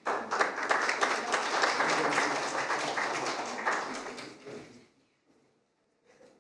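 Audience applauding: many hands clapping in a dense patter that starts all at once and dies away after about five seconds.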